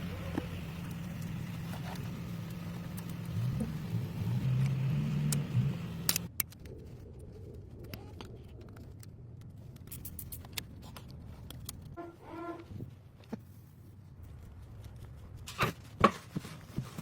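Heat gun blowing with a steady hum, switched off suddenly about six seconds in; after that, faint scattered clicks of parts being handled.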